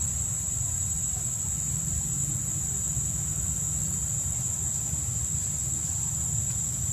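Steady, high-pitched buzz of an outdoor insect chorus, unbroken throughout, over a low steady rumble.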